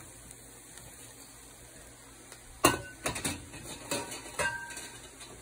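Several sharp knocks and clinks against a ceramic-coated frying pan, a few ringing briefly, starting about halfway through as chopped leftover rotti is tipped into the pan. The first knock is the loudest.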